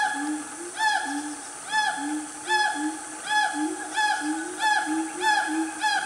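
A siamang group calling: a series of loud, arching whooping calls that come faster and faster, from about one a second to nearly two. Each whoop is paired with a shorter, lower hoot.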